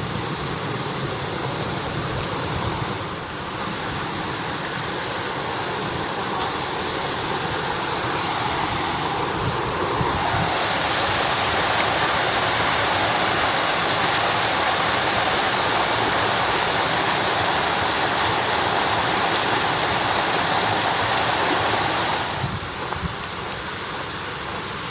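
Steady rush of flowing and falling water, a continuous hiss that steps up louder about ten seconds in and drops back near the end.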